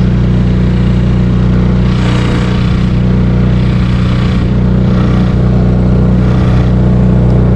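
Yamaha 3 hp outboard motor running steadily at cruising throttle, pushing a small inflatable boat along, with a rushing hiss of water and wind that swells now and then.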